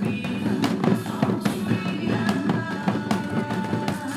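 A group of janggu drums (Korean hourglass drums) struck together in a steady beat, played along to a trot backing track.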